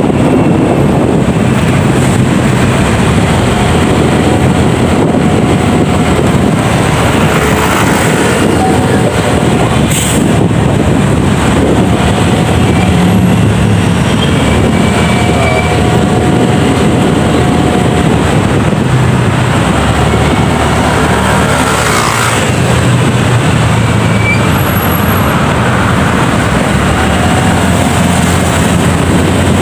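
Riding on a motorcycle: loud, steady wind rush on the microphone with engine and road noise underneath.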